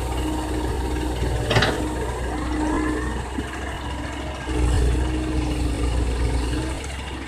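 Komatsu PC130 excavator's diesel engine running steadily at work, with a sharp clank about a second and a half in. The engine gets louder about four and a half seconds in as it takes on load.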